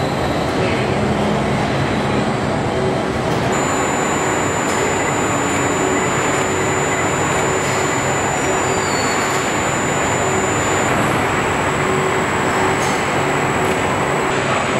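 Steady din of car-plant body-shop machinery and conveyors, a continuous noisy rumble and hiss with a faint hum. A thin high whine comes in about three seconds in and stops some seven seconds later.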